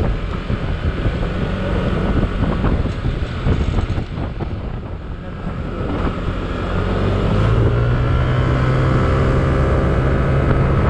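Yamaha Aerox 155 scooter's single-cylinder engine running at road speed under wind noise on the microphone. About six seconds in the engine note rises and then holds steady and louder as the scooter accelerates.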